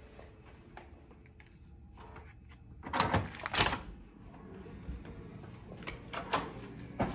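Hotel room door with an electronic key-card lock being unlocked and opened: a few light clicks, then two loud clunks of the latch and handle about three seconds in, and softer knocks as the door swings open.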